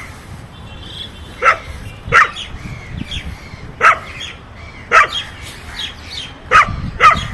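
A stray dog barking: six short, sharp barks at uneven intervals.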